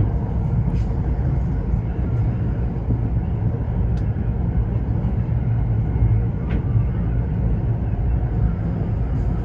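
Tokyo Metro 05 series commuter train running at speed, a steady low rumble heard from the cab, with a few faint clicks from the track.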